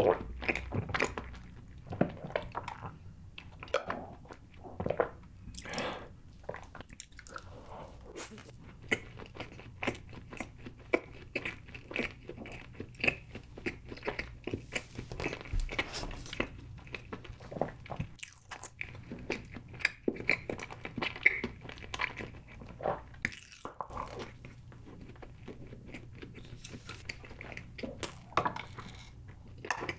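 Close-miked chewing and biting of chocolate cake, many short clicks and crunches throughout, with sips of chocolate milk through a straw.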